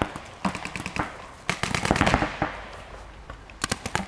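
Paintball markers firing quick strings of sharp pops, in separate bursts about half a second in and again near the end. A loud rushing noise fills the middle.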